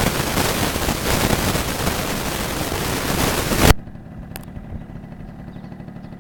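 Loud, even hissing noise across the whole range, the kind of noise the uploader blames on a sound problem after upload, which cuts off abruptly a little over halfway through. What is left is a quieter low steady rumble with one short click.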